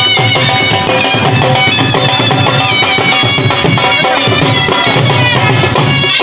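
Loud folk-style music: an ornamented, reedy wind melody over a steady drum beat.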